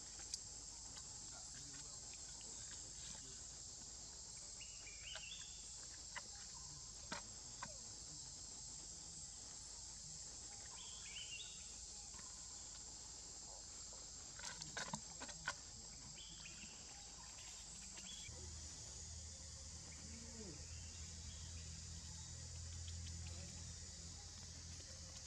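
Steady high-pitched insect chorus of forest insects, with scattered faint clicks and a few short chirping calls.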